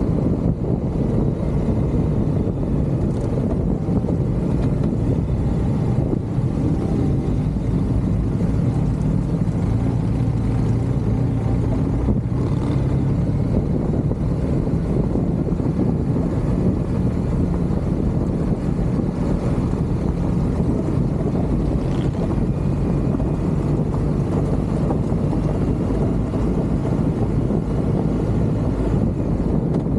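Steady low rumble of a moving vehicle: engine drone and road noise, with some wind on the microphone.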